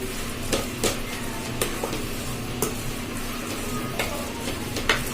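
Potato and vegetable masala sizzling in a pan on medium flame while being stirred, the utensil clicking sharply against the pan about five times, loudest near the end.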